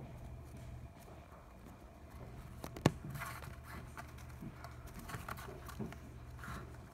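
Young eastern cottontails rustling through and nibbling a bed of fresh clover and grass, with small crisp clicks, over a low steady hum. A single sharp click about three seconds in is the loudest sound.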